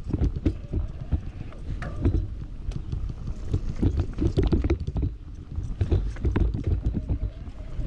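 Commencal Meta Power SX electric mountain bike descending a dirt trail at speed: a steady low rumble from the tyres and frame over the ground, with many sharp clattering knocks as the bike hits bumps.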